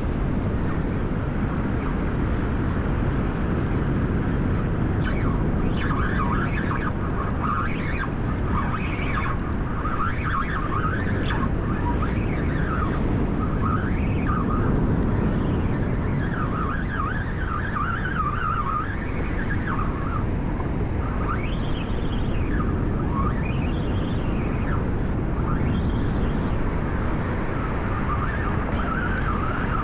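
Spinning reel's drag giving line to a hooked fish: a whine that rises and falls in pitch as the fish surges, with clicks, over steady wind rumble on the microphone.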